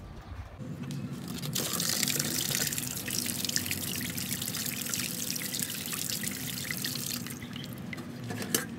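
Hands sloshing and splashing water in a plastic basin while washing chili peppers and a carrot, with drips and small splashes. The splashing picks up about a second and a half in and eases off near the end.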